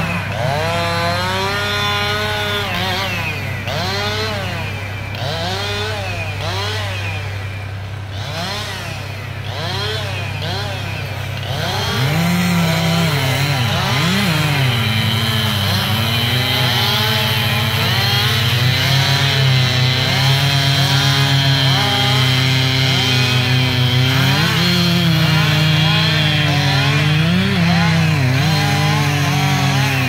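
Chainsaw revving up and down over and over, then running louder and steadier from about twelve seconds in as it cuts into felled logs. A steady low engine hum lies underneath.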